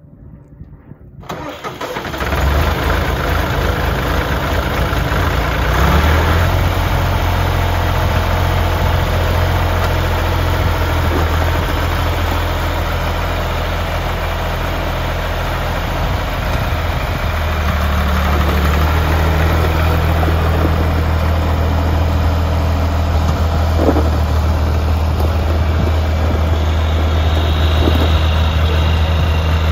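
John Deere 1520 tractor's three-cylinder engine being cranked and catching about two seconds in, then running steadily.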